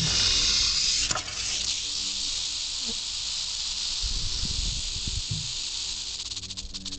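Western diamondback rattlesnake shaking its tail rattle: a steady high buzz, loudest in the first second and softer after. Near the end the buzz breaks into a fast stutter of separate clicks.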